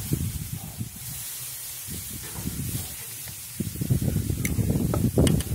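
Steaks sizzling on a grill grate, a steady faint hiss, under irregular low rumbling that grows louder over the last two seconds. A few sharp clicks come near the end.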